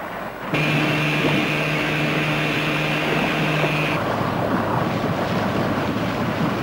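A steady engine drone with a high whine starts abruptly about half a second in and cuts off suddenly after about three and a half seconds. It is followed by an RNLI lifeboat running under power through choppy sea: engine and rushing bow wash.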